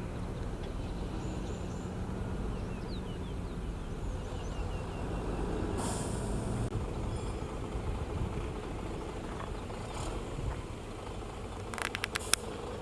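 Diesel engine of a heavy road-building machine running steadily, with a short hiss about six seconds in and a few sharp clicks near the end.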